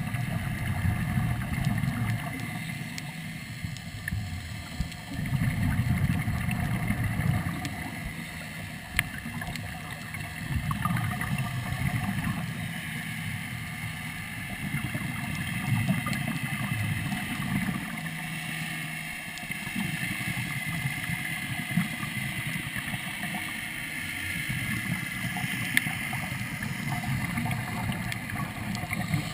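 A scuba diver's breathing heard underwater: exhaled air bubbles rumble up in surges every few seconds from a Third Lung surface-supplied regulator, over a steady hiss, with a few sharp clicks.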